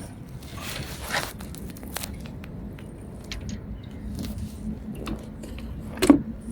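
Cast net being handled and hauled in: rustling, a brief swish about a second in, and scattered clicks and knocks, with a sharper knock near the end.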